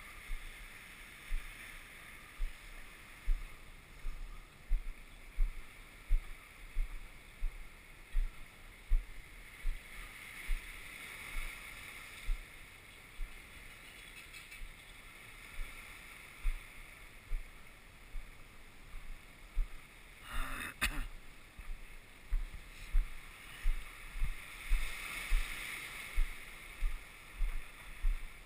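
Footsteps thudding through a body-worn camera at a steady walking pace, about one and a half steps a second, over a steady background hiss. A single sharp knock comes about two-thirds of the way through.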